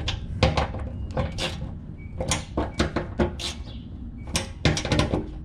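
Irregular clusters of sharp metallic clicks and clacks from a hand tool on the fuel sender's mounting nuts as they are snugged down in turn.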